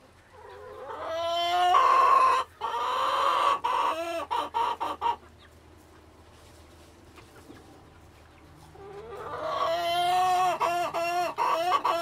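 Chicken calling twice. Each call is long and drawn out, swells in loudness, then breaks up into short choppy notes.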